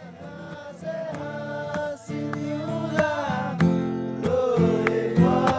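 Acoustic guitar strummed in chords while a voice sings a long, wavering melody.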